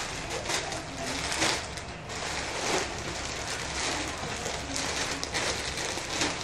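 A clear plastic poly bag crinkling and rustling as it is handled and opened, with a quick run of small crackles.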